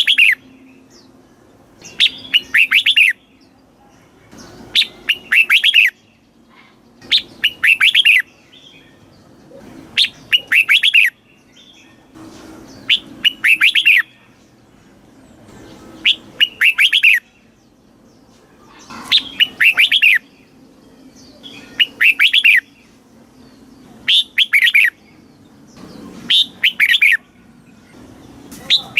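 Red-whiskered bulbul singing: short, bubbly, warbled song phrases of about a second each, repeated roughly every two and a half seconds.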